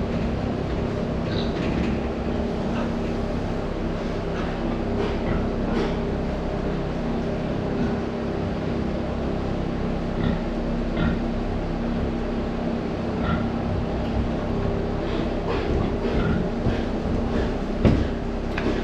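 Steady machine drone with a low hum from pig-barn equipment, with scattered light knocks and clatter and one louder knock near the end.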